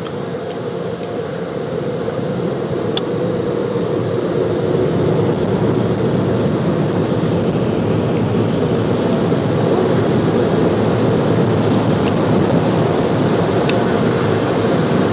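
Automatic car wash running over the car, heard from inside the cabin: a steady rushing noise that slowly grows louder as the spray gives way to the drying stage.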